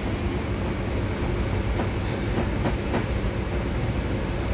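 Steady low hum and rumble of background machinery, with a few light clicks of a long knife against a plastic cutting board about two to three seconds in as a sayori is filleted.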